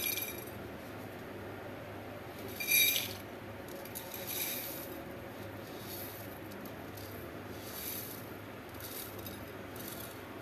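Crisp deep-fried split moong dal grains poured from a bowl onto a ceramic plate, pattering onto it in several short spills, the loudest about three seconds in. The dry patter is the sign that the dal is fried crisp.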